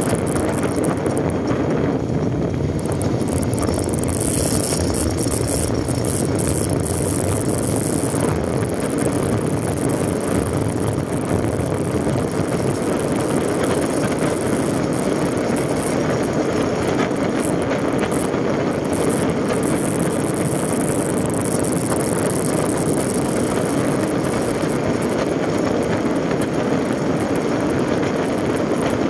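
Motorcycle riding at a steady speed on a paved road: wind rushing over the microphone, with the engine running underneath.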